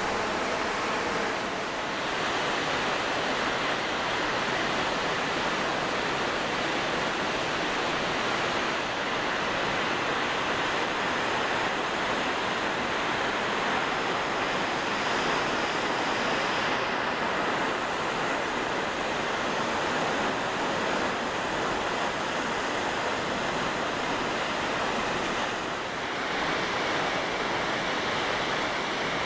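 Steady rushing of distant water, a river or waterfall, an even hiss-like roar that barely changes.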